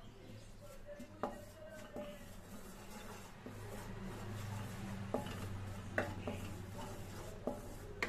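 Spatula scraping and knocking against a non-stick kadhai while stirring dry flour, with a few sharper taps on the pan. The flour is being dry-roasted for a white sauce. A steady low hum runs underneath and grows louder about halfway through.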